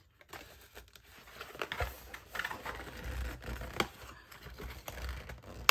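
Paperboard carton being handled and pried open, with cardboard rustling and scraping and a few light knocks, as a stuck tube of body cream is worked out of it.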